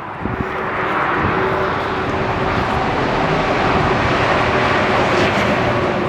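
Steady rushing engine noise with a faint steady hum, swelling in the first second and then holding level.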